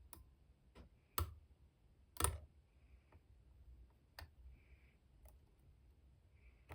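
Lock picking on a Master Lock No. 150 padlock: a few faint, irregular small metal clicks and taps as the pick and tension wrench work the pins in the keyway, with two sharper clicks about one and two seconds in.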